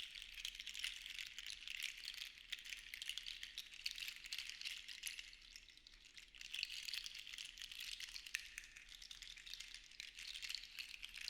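Seashells rattling together in a shaken shell rattle: a dense stream of small, bright clicks that eases off about halfway through, then builds again.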